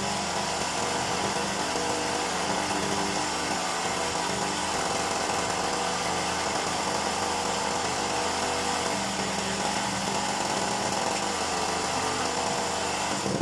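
Small 3000-watt gasoline generator engine running steadily at a constant speed.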